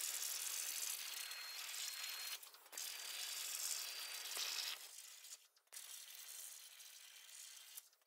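Homemade CNC plasma cutter's torch cutting metal plate: a steady hiss from the arc and air jet. It breaks off briefly twice and is quieter in the last few seconds.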